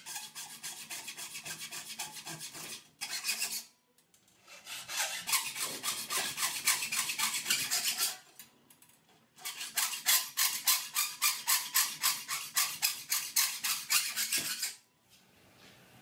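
Hacksaw cutting through slotted metal cable tray clamped in a vise: fast, even back-and-forth strokes, about three to four a second, in three bouts with short pauses between them, stopping shortly before the end. These are the straight cuts for a set bend in the tray.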